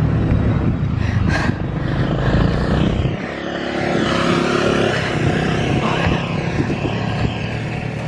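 Motor scooter engines on a steep hill road. A steady engine hum changes about three seconds in, and a scooter's engine swells and fades as it rides past close by.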